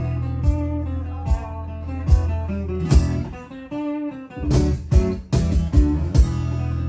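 Acoustic guitars played live in an unplugged rock band set: strummed chords over a low sustained bass, with no singing. The playing thins out briefly about halfway through, then comes back in with sharp strums.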